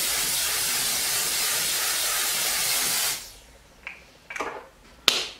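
Makeup setting spray misted onto the face: a long, continuous hiss that stops about three seconds in, followed by a few light clicks, the sharpest near the end.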